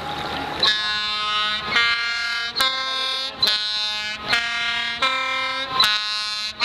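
A ship's horn plays a tune, starting about a second in. It sounds about eight held notes, each a rich, brassy tone, changing pitch roughly every second with a brief break between notes.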